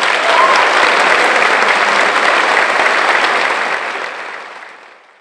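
Audience applauding at the end of a concert-band piece, steady and loud, then fading away over the last second or two.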